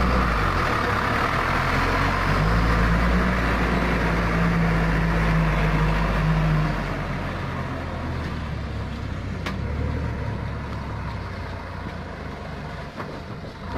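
Heavy diesel engine running steadily with a low hum, louder for the first seven seconds and then settling quieter. A single sharp click a little past halfway.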